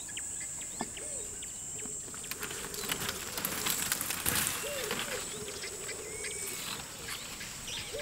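Dry savanna ambience: a steady high insect hiss with scattered bird chirps and calls, including a rapid low trill a little past halfway.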